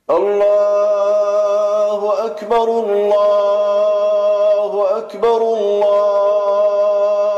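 A solo male voice reciting the Quran in the melodic, drawn-out mujawwad style. It starts suddenly and holds long, steady notes with ornamented turns, pausing for breath about two and a half and five seconds in.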